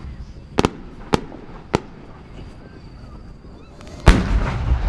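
Firework shells going off: three sharp cracks in the first two seconds, then a heavy boom about four seconds in that rumbles on as it echoes away.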